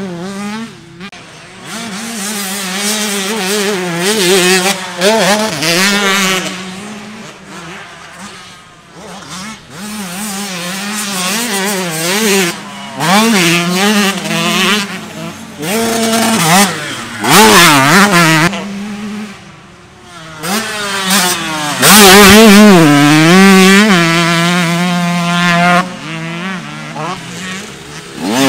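Dirt bike engines revving hard and shifting through the gears as bikes ride the track, the pitch climbing and dropping again and again, with the loudest pass about three quarters of the way through.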